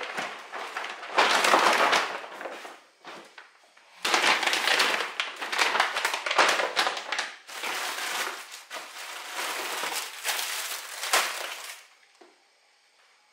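Plastic shopping bags and plastic-wrapped food packs rustling and crinkling as groceries are unpacked onto a table, in three long stretches of handling; it dies away near the end.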